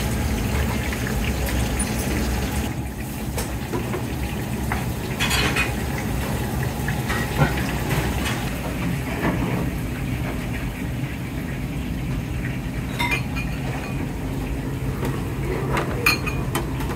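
Restaurant kitchen at work: a steady low hum under tempura frying in a deep-fry pot of oil, with a few sharp clinks of ceramic bowls and utensils.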